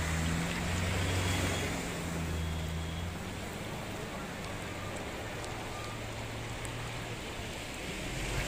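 Heavy rain and cars wading through a flooded road: a steady rush of water noise, with a vehicle engine's low hum that fades after about three seconds.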